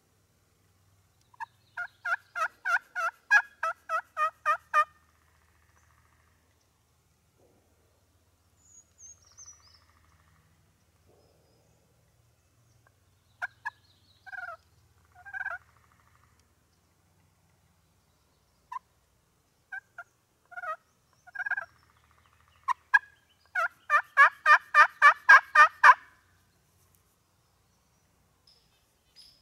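Turkey yelping: two runs of rapid yelps, about four a second, the first a couple of seconds in and the second near the end, with scattered single yelps between them.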